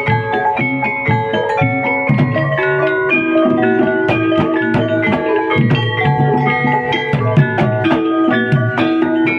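Javanese gamelan music: bronze bonang kettle gongs and a saron metallophone struck with mallets in a quick run of stepped notes, over repeated low kendang drum strokes.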